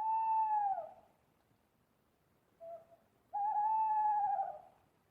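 Owl hooting: a long call that drops in pitch at its end, a short soft note about two and a half seconds in, then a second long call with a slight waver.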